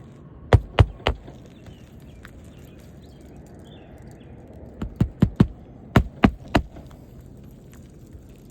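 Hammer blows on roofing nails, fastening a replacement asphalt shingle: ten sharp strikes in three quick runs of three or four, about a third of a second apart.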